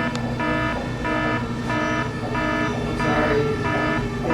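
School fire alarm horn sounding a buzzing tone in steady pulses, about three every two seconds, set off from a manual pull station.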